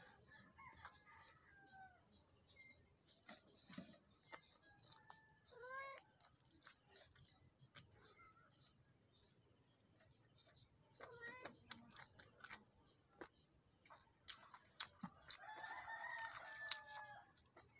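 Faint clicks and smacks of eating by hand, with chickens clucking in the background and a rooster crowing for about two seconds near the end.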